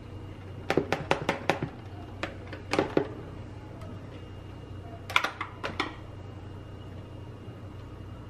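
Light clicks and knocks of the hand mixer's metal beaters and a metal utensil against a plastic mixing bowl, in three quick clusters: about a second in, around three seconds and about five seconds in.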